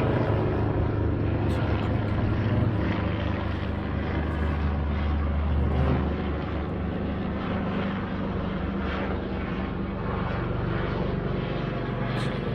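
Police helicopter hovering overhead, its rotors making a steady low drone that eases slightly about halfway through.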